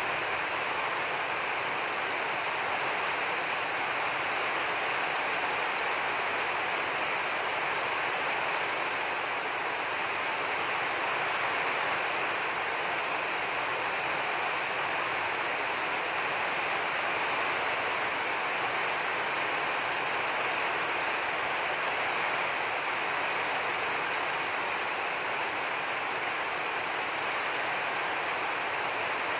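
Steady, even rushing noise, constant throughout, with no separate drops, knocks or voices standing out.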